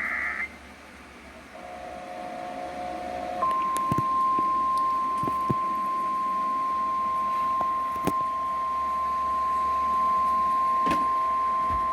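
The tail of an Emergency Alert System SAME header data burst, then, about three and a half seconds in, a single steady alert tone near 1 kHz: the NOAA Weather Radio warning alarm tone announcing a severe thunderstorm warning. The tone holds unchanged until near the end.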